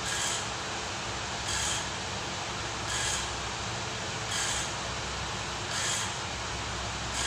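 Steady machine noise, a low hum under an even hiss, with a sharper hissing pulse repeating about every second and a half.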